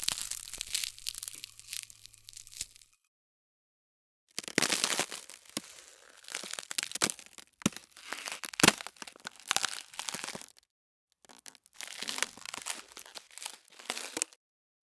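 Ice cracking: three separate runs of crackling and sharp snaps, each cut off by dead silence, the loudest snap about nine seconds in.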